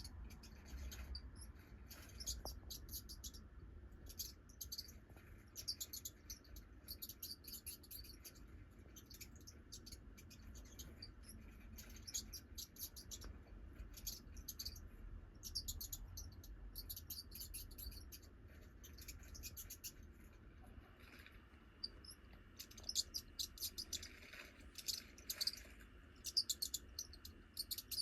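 Clusters of short, high-pitched chirps and squeaks, like birds or mice, played from a video made for cats. They come in bursts throughout and grow busier near the end.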